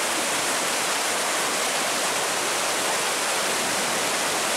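Flooded river water pouring steadily over a weir.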